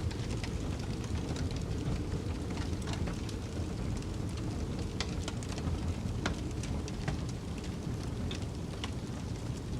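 Wood fire crackling in a fireplace, with irregular sharp pops and snaps over a steady low rumble of snowstorm wind.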